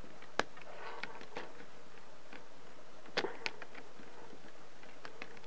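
Light clicks and ticks of fingers handling the plastic frame of an HP Envy 4-1115dx laptop lid along its edge, where the old adhesive strip lies. There is one sharp click about half a second in and two more about three seconds in.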